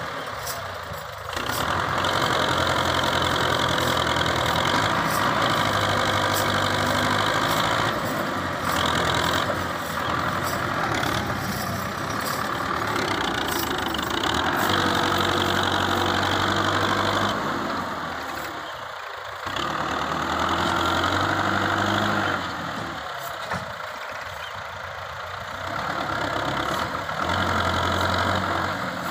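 Tractor diesel engine working hard while pulling a loaded trolley through deep sand; the engine note rises and falls, easing off twice in the second half.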